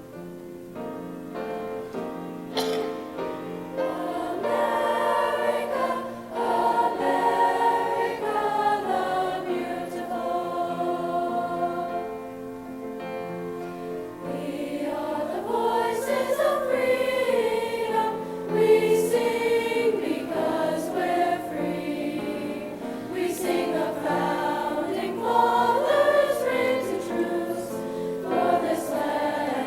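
A choir singing, starting softly and swelling over the first few seconds.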